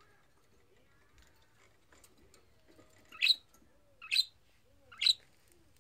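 Budgerigar giving three short, sharp chirps about a second apart, starting about three seconds in.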